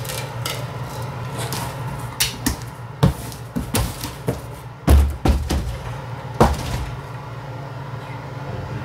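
A cardboard box being handled and taped with a handheld packing-tape dispenser: a series of sharp knocks and thumps, the loudest about five seconds in, with a few short scrapes. A steady low hum runs underneath.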